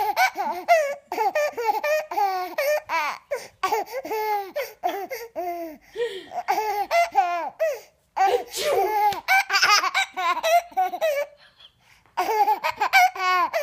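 A baby laughing hard in a long run of high-pitched giggling bursts, breaking off briefly about eleven seconds in before starting again.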